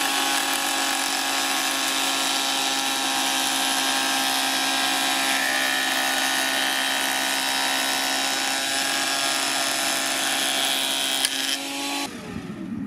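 Parkside PADM 1250 planer-thicknesser running steadily with a whine as a board is fed across its jointer cutter block. The sound stops abruptly near the end.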